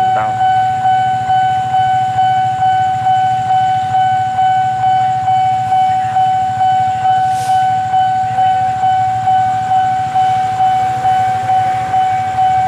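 Railway level-crossing warning alarm ringing: one steady high electronic tone pulsing evenly a little under twice a second, the signal that a train is approaching and the barriers are down. A low hum runs underneath.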